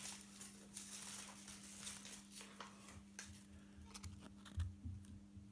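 Faint scattered clicks and light rustles of small plastic pieces being handled, likely the toy and capsule from a Kinder Surprise egg, over a low steady hum.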